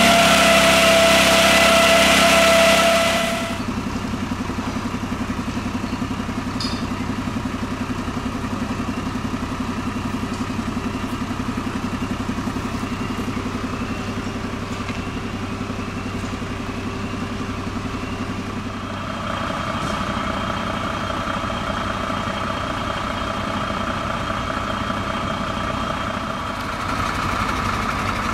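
Fire engine idling steadily, its engine note changing about two-thirds of the way through. It opens with a loud rushing sound carrying a steady high tone, which cuts off suddenly about three seconds in.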